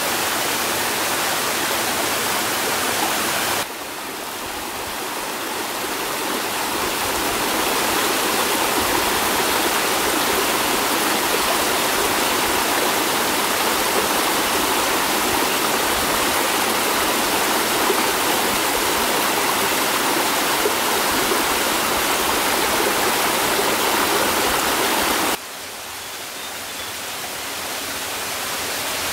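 Steady rushing of running water, like a forest stream. It drops suddenly twice, about three and a half seconds in and near the end, and each time swells back up over a few seconds.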